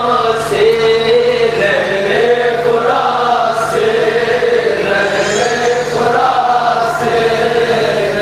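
A group of men chanting a nauha, a Shia mourning lament, together into a microphone, in long held notes that slowly rise and fall.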